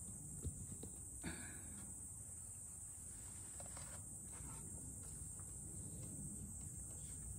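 Steady high-pitched drone of insects outdoors, with two soft knocks about half a second and just over a second in.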